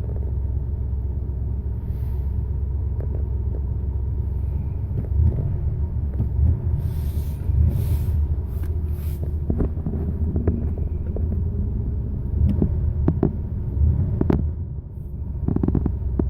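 Car engine running at idle, a steady low rumble, with a few sharp clicks and knocks in the second half.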